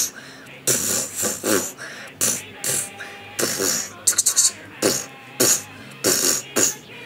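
Fight sound effects made by mouth: short punching and hissing vocal noises in quick bursts, about two a second. About four seconds in comes a quick run of sharp clattering knocks as plastic action figures are banged together.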